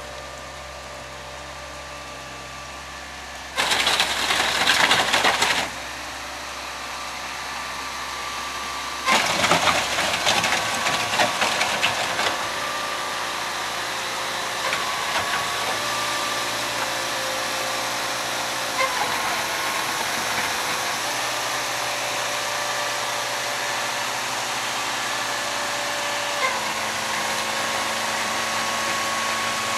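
Construction machinery running: a steady motor hum with a whining tone that steps to a new pitch several times. Louder bursts of rattling noise come about four seconds in and again from about nine to twelve seconds.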